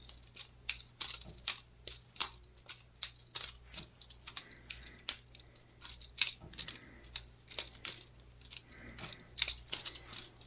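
Boker Plus balisong butterfly knife being flipped open and closed over and over: a rapid, irregular run of sharp metallic clicks, about three or four a second, as the handles swing around the blade and clack together.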